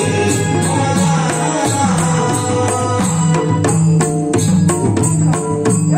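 Dholki and mridang playing a fast, steady rhythm in Marathi folk-devotional music, about three to four strokes a second, the low bass-head strokes bending in pitch; the strokes grow sharper and louder in the second half.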